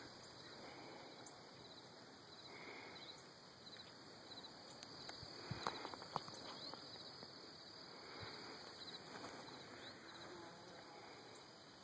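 Faint open-field ambience: a small high chirp, from an insect or bird, repeats a little more than once a second, with a few soft knocks about halfway through.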